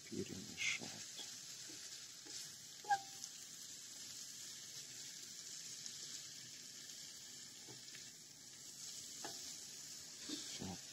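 Sliced mushrooms sizzling softly in oil in a frying pan over low heat, browning after their water has cooked off. A fork scrapes and clicks against the pan as they are stirred, with one sharper click about three seconds in.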